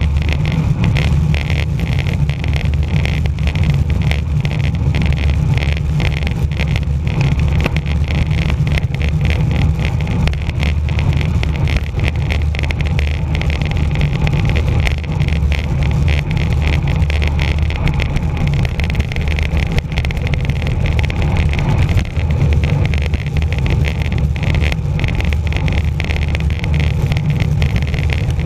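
Wind rushing and buffeting over a bicycle camera's microphone on a fast downhill descent: a loud, steady, rumbling rush that flutters throughout.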